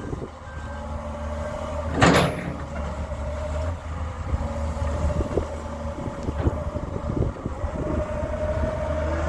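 Doosan 225 hydraulic excavator's diesel engine running steadily, with a steady whine and scattered metallic knocks and clicks. There is one short, loud rushing burst about two seconds in.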